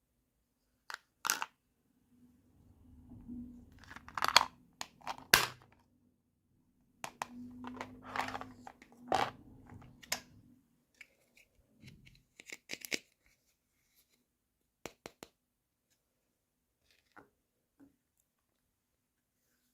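Hands unpacking small plastic toys: tearing and rustling packaging in two stretches, with sharp plastic clicks and taps, then scattered single clicks.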